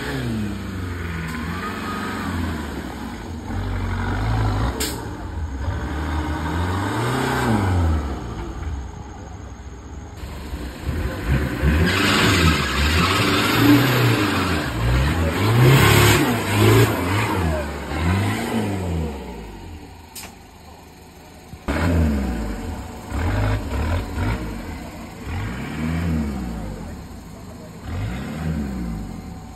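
Off-road 4x4 engine revving again and again, its pitch climbing and dropping every second or two. It is loudest around the middle and quieter near the end.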